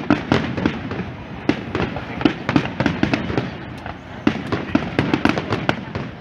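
Aerial firework shells bursting in quick succession: a dense, irregular run of sharp bangs and pops, several a second.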